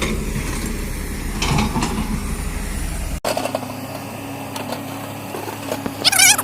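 Diesel engine of heavy construction machinery running steadily, then cut off abruptly just after three seconds into a quieter steady hum, with a short warbling call near the end.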